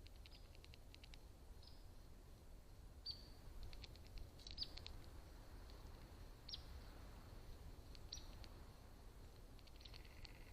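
Faint, short high chirps of small birds, spaced a second or two apart, with light clicks in between.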